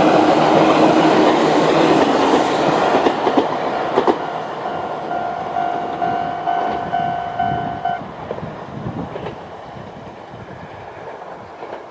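Chichibu Railway 7500-series train passing over a level crossing, its rushing wheel noise loud at first and then fading, with a few wheel clacks. The crossing's old-type standard electronic warning bell pulses under it, then stops abruptly about 8 seconds in.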